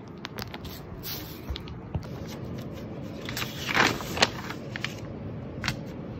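Handling rustles and crackles: plastic branches of an artificial Christmas tree shifted in a cardboard box, then a paper instruction sheet flipped open and spread out, with a louder rustle of paper about four seconds in.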